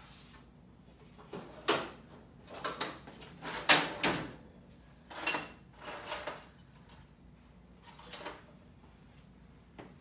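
Someone rummaging for a razor blade: a handful of scrapes, knocks and rattles of handled objects, the loudest about four seconds in.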